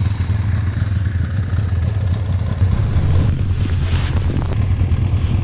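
Small engine idling steadily at a low, even speed. About three seconds in, a hiss rises briefly and fades.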